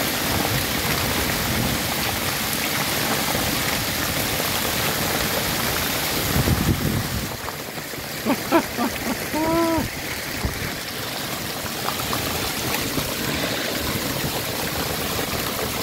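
Heavy hailstorm: hailstones and rain falling hard on paving and parked cars in a steady, dense hiss. About two thirds of the way through, a short pitched call rises and falls over it.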